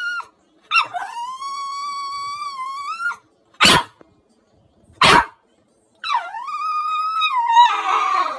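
A dog giving long, high-pitched whining howls, broken by two short sharp barks about a second and a half apart; the last howl turns rougher near the end.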